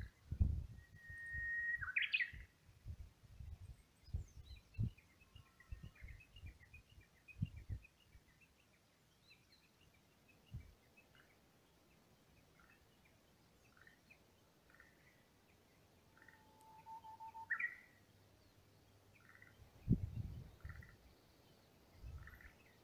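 Wild birds calling and singing: a held whistle that sweeps up sharply, a run of quick high notes, then short chirps repeated about twice a second, with one lower whistle. Low rumbles on the microphone come in the first several seconds and again near the end.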